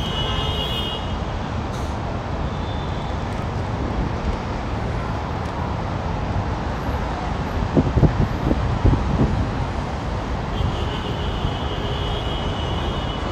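Steady road-traffic noise from the busy roundabout around the monument, with a short cluster of low thumps about eight seconds in and a faint high steady tone for a few seconds near the end.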